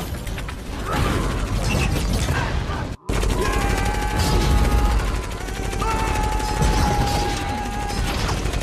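Movie action soundtrack of rapid sci-fi gunfire and crashing impacts. After a brief drop-out about three seconds in, steady held pitched tones run under the shots.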